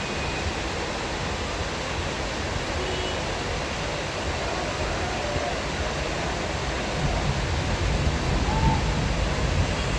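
Heavy monsoon rain falling, a steady hiss, with a louder low rumble of thunder building in the last three seconds.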